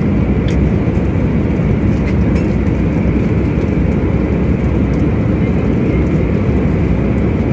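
Steady airliner cabin noise: the low, even roar of the jet engines and airflow, with a few faint clicks over it, the clearest about half a second in.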